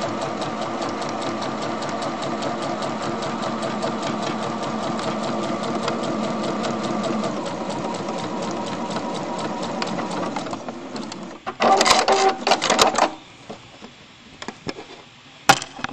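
Home sewing machine running at a steady speed, its needle stitching a seam through fabric in a fast, even rhythm. It slows and stops about ten seconds in, followed by a short burst of clicks and clatter and a few lone clicks near the end.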